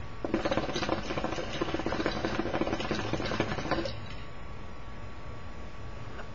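Water bubbling in the base of a KM Heart of the Lion hookah as smoke is drawn through the hose: a dense, rapid gurgle lasting about three and a half seconds that stops suddenly.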